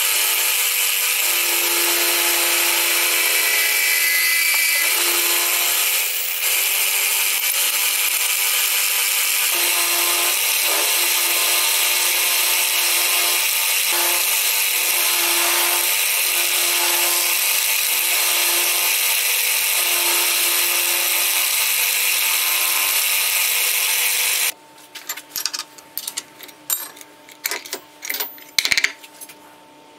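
Bench milling machine cutting an aluminium plate with an end mill: a steady motor-and-cutting noise with a whining tone. About 24 seconds in it stops abruptly, and scattered clicks and knocks follow as the work and clamps are handled.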